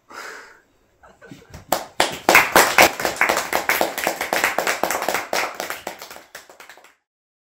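A small group of people clapping their hands in applause. It starts about two seconds in, is dense at first, then thins out and stops near the end.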